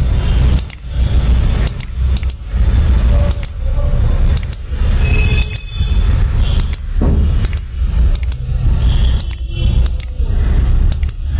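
Computer mouse clicking about once a second, each click a quick double tick, over a steady low rumble.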